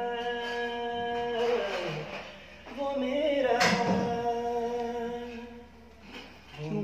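A man singing an Urdu ghazal without instruments, drawing one syllable out into two long held phrases with a slow sliding turn of pitch between them. A brief sharp sound cuts in near the middle.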